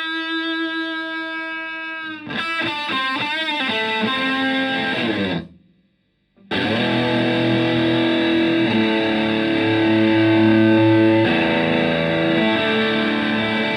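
Stratocaster electric guitar played through a Tone Bender MKI germanium fuzz pedal (OC72/OC71/OC75 transistors) into a Fender Twin Reverb–style amp. A held fuzzy note gives way to a quick run of bent, wavering notes, then the sound cuts out for about a second, and sustained fuzz chords follow, changing every couple of seconds.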